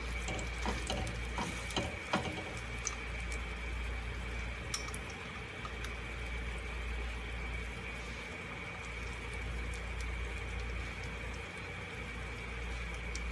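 Hot oil sizzling steadily around a roti tikki as it shallow-fries in a frying pan, with a few light clicks and taps in the first couple of seconds as the patty is set into the pan.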